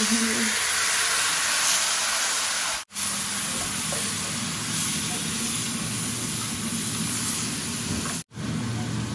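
Raw beef brisket chunks sizzling in hot oil on a bed of fried onions, ginger and garlic, stirred with a wooden spoon, with a steady frying hiss. The sound cuts out completely twice for an instant.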